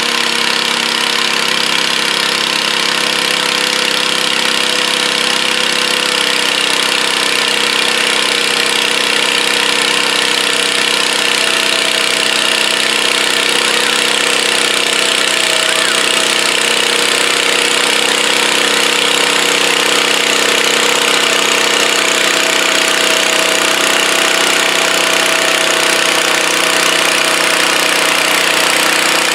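Garden tractor engine running steadily under load while pulling a weight-transfer sled, its note holding even throughout.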